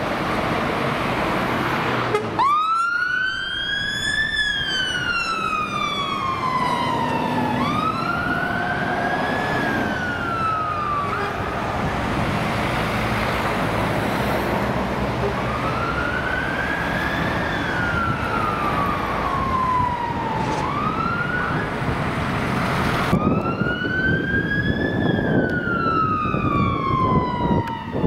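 Road traffic noise, then about two seconds in a fire engine's siren cuts in on a slow wail, rising and falling in pitch once every five seconds or so, over engine and traffic noise.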